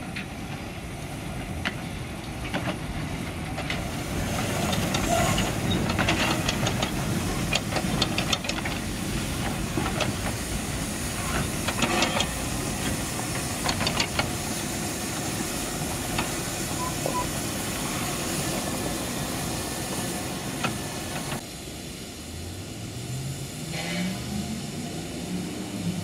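891 mm narrow-gauge steam train passing slowly, steam hissing, with a steady run of clicks and clanks from its wheels and carriages. Near the end the sound drops and a motor's drone rises in pitch.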